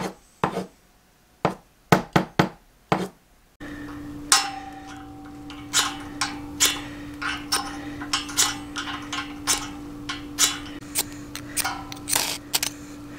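A few short taps, Morse code tapped out by hand. Then, after a cut, repeated quick scrapes of a steel striker along a ferrocerium fire-starter rod, roughly one to two strokes a second, over a steady hum.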